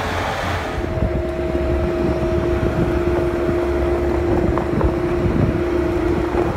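Bobcat 773 skid-steer loader's diesel engine running, with a low rumble and a steady whine on top.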